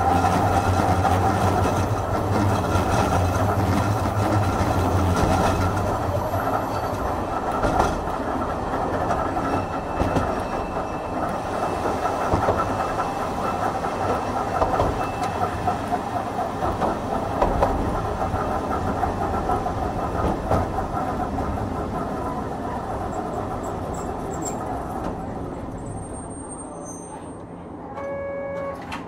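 Hankai Tramway Type 351 tram with nose-suspended traction motors running, heard from on board: a motor whine fades at the very start, then rumble and clicks over the rail joints that grow gradually quieter as the tram slows. A short tone sounds near the end.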